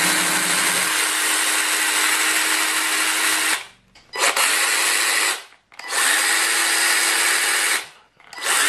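Parkside 12 V cordless mini chainsaw running free with no load, a steady electric motor and chain whir. It runs once for about three and a half seconds on the 2 Ah battery, then in three shorter bursts on the 4 Ah battery, on which the owner finds it revs a little higher and picks up faster.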